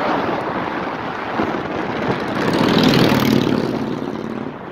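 A motor vehicle passing close by: engine hum and road noise swell to a peak about three seconds in, then fade.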